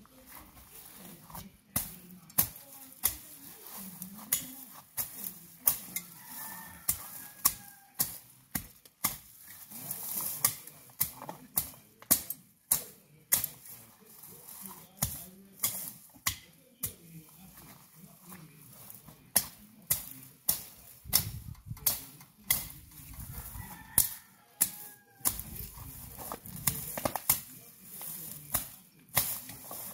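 Machete chopping through dry grass and weeds at ground level: sharp, irregular strokes, about one or two a second.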